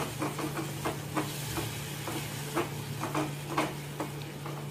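Silicone spatula stirring a thick sauce in an aluminium pan, soft scraping strokes against the pan about twice a second over a faint sizzle of the sauce cooking. The sauce has just been thickened with cornflour slurry and is simmering on a low flame.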